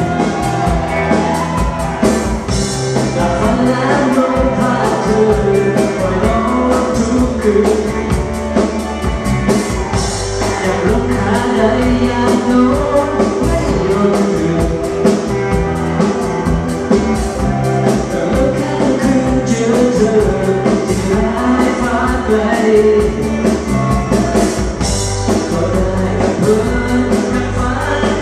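Live band playing a Lao lamvong dance tune, with a steady drum beat under bass and melody lines.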